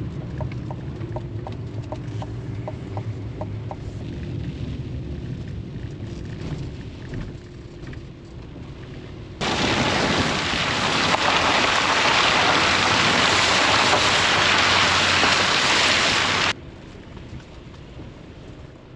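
An engine running steadily with a light, regular ticking at first. About halfway through, it cuts abruptly to heavy rain pouring down for about seven seconds, which stops just as suddenly.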